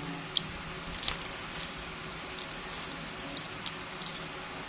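Eating sounds: a few short, sharp mouth or utensil clicks over a steady background hiss.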